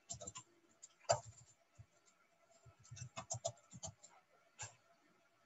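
Faint computer keyboard keystrokes: scattered single key clicks, the sharpest about a second in, then a quicker run of keys about three seconds in as a line of code is typed.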